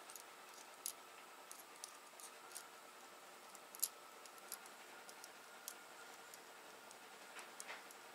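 Faint, irregular small metallic clicks and ticks of a pick tool and valve keepers being worked into a compressed valve spring retainer on a VR6 cylinder head, over a faint steady hum.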